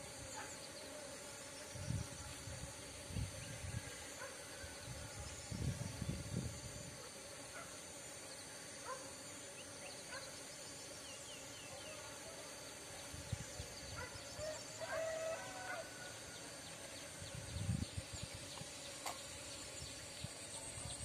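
Faint outdoor field ambience: a steady low hum, several low bumps on the microphone, and a few short bird chirps, with a fowl-like call about two-thirds of the way through.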